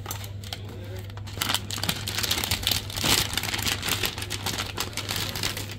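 Motherboard packaging being opened: dense crinkling and rustling with small handling clicks, over a steady low hum.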